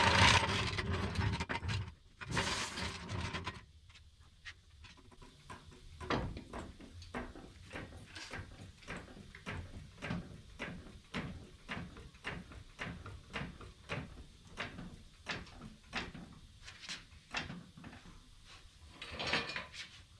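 Hydraulic floor jack being pumped to lift the car, a regular mechanical click about twice a second. It is preceded by a few seconds of louder rattling and scraping noise.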